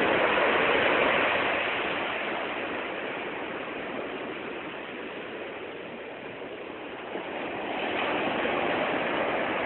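Ocean surf breaking and washing up the beach, a steady rushing that eases off in the middle and swells again near the end.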